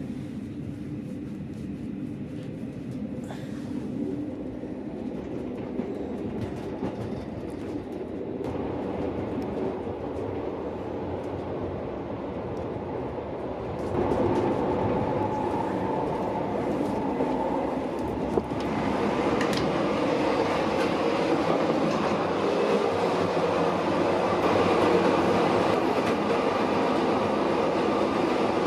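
Metre-gauge regional train of the Chemins de fer du Jura running on the line, with wheels clicking over the rail joints; the running noise gets louder in steps about 8, 14 and 18 seconds in.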